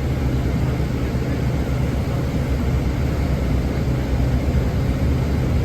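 Inside a 2013 Nova Bus articulated city bus under way: a steady low engine rumble and road noise, with an odd whine that comes from the engine.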